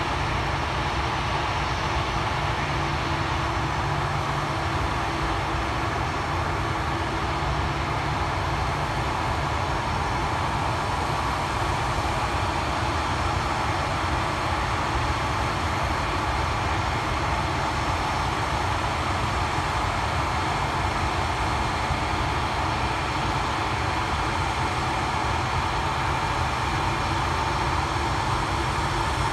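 Jet airliner engines running at a steady, unchanging pitch, with faint whining tones over a heavy low rumble.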